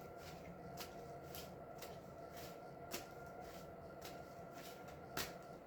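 A tarot deck being shuffled by hand: faint, irregular soft flicks and taps of cards, with a louder snap near the end, over a faint steady hum.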